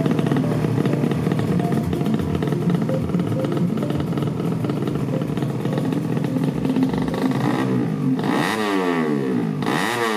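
Drag-race motorcycle engines running together in a dense, steady mix. From about eight seconds in, an engine is revved up and down in quick blips.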